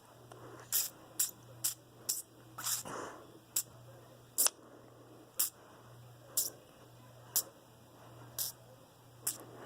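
A person making sharp clicking noises with the mouth, a dozen clicks, about two a second at first and then slowing to about one a second, with a short breathy rush about three seconds in.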